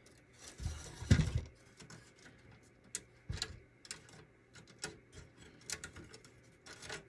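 Hard plastic toy store frame being handled while twist ties are undone from its doors. There is a louder knock and rustle about a second in, then scattered small plastic clicks and taps.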